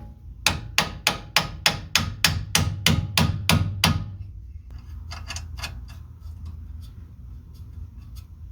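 A hammer striking metal in a steady series of about ten blows, two or three a second, followed by a few lighter clicks.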